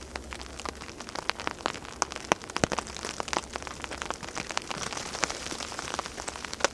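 Rain falling, with many irregular sharp drops ticking on a surface close by.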